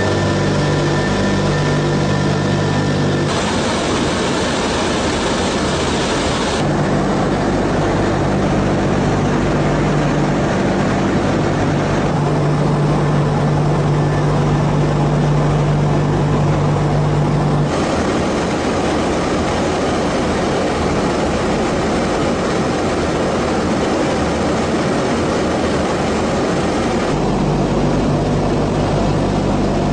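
Tupolev Tu-95MS bomber's four turboprop engines and contra-rotating propellers running in a loud, steady drone with a low pitched hum. The sound changes abruptly several times.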